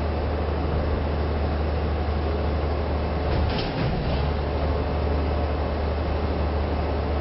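Garbage truck engine running steadily with a deep rumble, dipping briefly a little past halfway.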